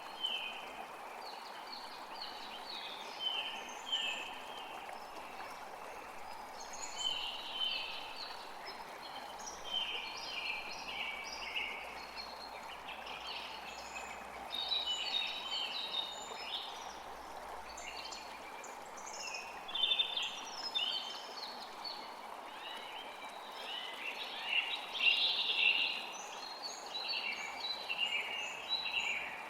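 A forest creek flowing steadily, with several songbirds singing in quick, overlapping phrases above it.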